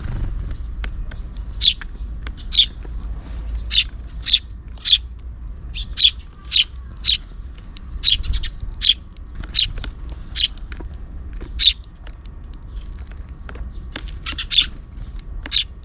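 Sparrows chirping: short, sharp, high chirps, one every half second to a second, over a steady low rumble.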